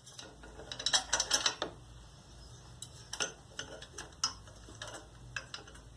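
Hand socket ratchet clicking and metal tools clinking while nuts on an exhaust mount are worked: irregular clicks, with a quick run of them about a second in.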